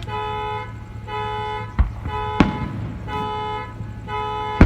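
Car alarm sounding the car's horn in short, evenly repeated blasts, about one a second. Two fireworks bangs go off about two seconds in.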